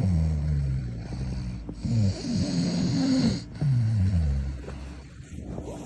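A sleeper snoring: three long snores about one and a half seconds apart, the first and last sliding down in pitch.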